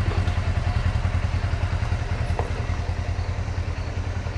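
Huskee log splitter's small single-cylinder gas engine running steadily with a fast, even pulse.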